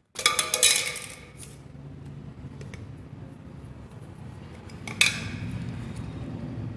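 Plastic power bank casing being pried open with a small screwdriver: a quick run of clicks and scraping as the clips let go, then one sharp click about five seconds in, over a low steady hum.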